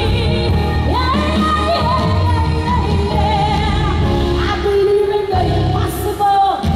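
A woman singing into a handheld microphone over a backing track, holding long notes with vibrato.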